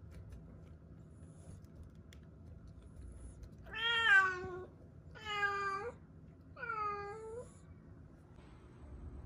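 A kitten meowing three times, each call under a second long and about a second apart, the first the loudest.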